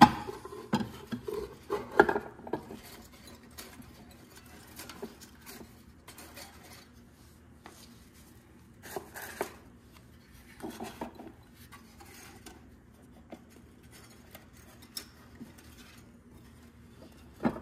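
Small ceramic decor pieces clinking and knocking against each other and the wooden shelves as they are handled and set in place: several clinks in the first few seconds, then only occasional ones.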